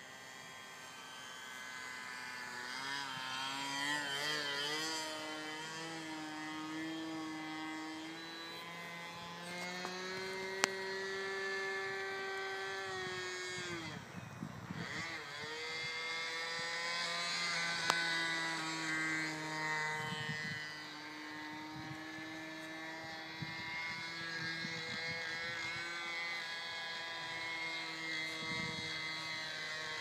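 Radio-controlled Seagull 40 model airplane's engine buzzing as it flies overhead. The pitch rises and falls with the throttle and the plane's passes, with a sharp drop about fourteen seconds in as it goes by.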